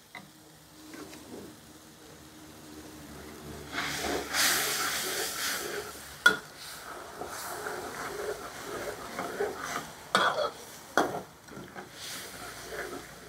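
Metal ladle stirring a bubbling, sizzling palo sauce in a large steel wok. The sizzle is loudest a few seconds in. The ladle knocks sharply against the wok about halfway through and several times near the end.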